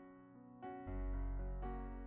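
Soft background piano music, with chords struck about once a second and a deep bass note entering just under a second in.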